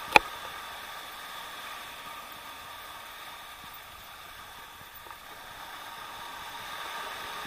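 Steady hiss of small waves washing up on the beach and over rocks, mixed with wind on the microphone, with one sharp click just after the start.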